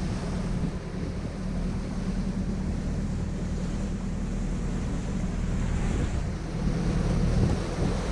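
Wind buffeting the microphone over the rush of waves against a sailboat's hull as it sails through a rough sea, swelling near the end as spray comes over the side.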